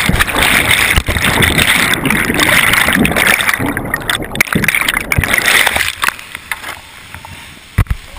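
Whitewater rushing and churning around a kayak, with scattered knocks against the kayak and camera. The water noise drops sharply about six seconds in, leaving a quieter rush and a couple of sharp knocks near the end.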